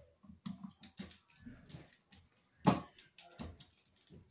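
Screwdriver driving a GFI receptacle's mounting screws into the electrical box: a run of short, irregular creaks and clicks, about three a second, with one louder one a little under three seconds in.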